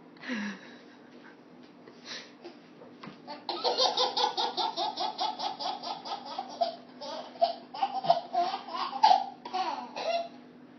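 A baby laughing: after a few quiet seconds, a long run of rapid belly laughs starts about three and a half seconds in and lasts most of the rest.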